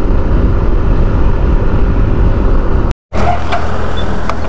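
Riding noise from a Yamaha scooter: a loud rush of wind on the camera microphone with the engine running under it. About three seconds in, the sound cuts off sharply, then a steadier low hum with a few light clicks follows while the scooter stands still.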